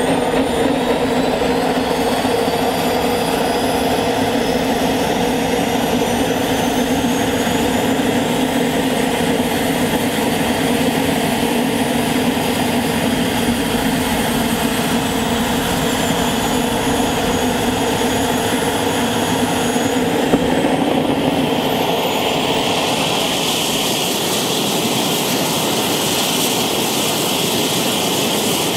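Small gas-turbine engine of a large RC L-39 Albatros model jet running on the ground: a steady jet roar with a high turbine whine that drifts slowly up and down in pitch. About 20 s in, the whine climbs sharply and the sound turns to a more even hiss.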